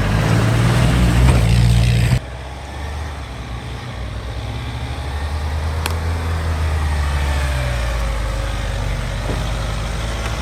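Engines of off-road 4x4 vehicles running under load as they climb a rocky trail. About two seconds in the sound cuts abruptly to another engine whose pitch rises and falls with the revs.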